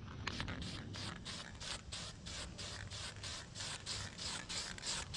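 Aerosol spray-paint can hissing in a quick run of short sprays, several a second.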